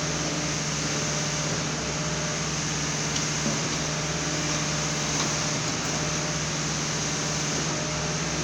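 Concrete pump's engine running steadily, a constant low hum under an even mechanical noise.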